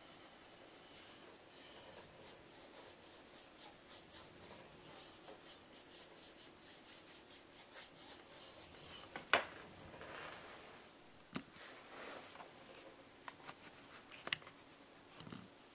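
A fine paintbrush stroking and dabbing paint onto a canvas in a quick, scratchy rhythm of about four or five strokes a second, then a few sharp taps and knocks as the canvas is handled.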